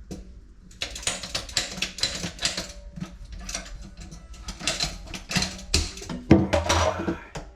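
Irregular mechanical clicking and scraping from hand-worked hardware, starting about a second in.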